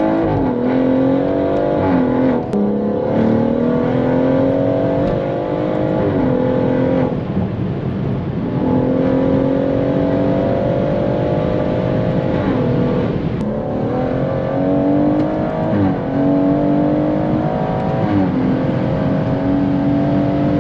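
BMW M140i's tuned B58 turbocharged straight-six engine, heard from inside the cabin, pulling hard at high revs under acceleration. The engine note climbs steadily and dips briefly several times at gear changes.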